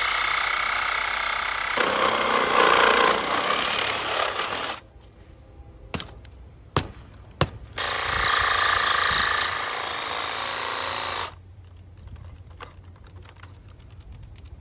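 Ryobi 18-volt cordless reciprocating saw cutting thick steel pipe in two runs of about four seconds each, with a few sharp knocks in the pause between. The saw stops about eleven seconds in as its weak battery runs flat.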